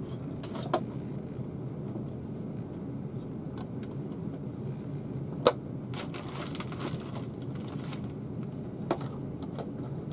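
A plastic food tub being handled while raw chicken hearts are tipped into a metal bowl: a few sharp clicks and taps, the loudest about halfway through, with a plastic rustle just after it, over a steady low hum.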